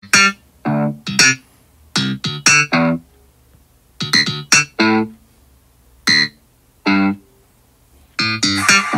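Electronic keyboard chord stabs from a synthpop track: short, detached chords played in small groups with near-silent gaps between them. About eight seconds in, a fuller synth layer with a held tone comes in underneath.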